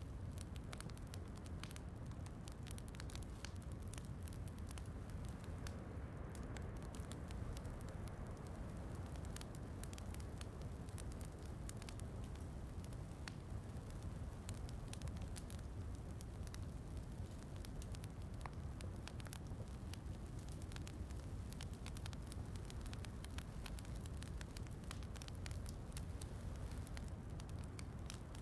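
Wood fire crackling in a fireplace, with frequent small sharp pops, over a steady low rush of rain.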